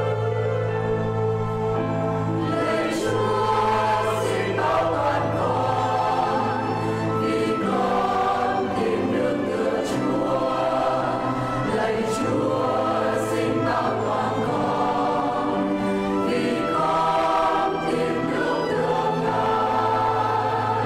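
Mixed church choir singing a Vietnamese psalm setting, accompanied by violin and keyboard, over long held low bass notes.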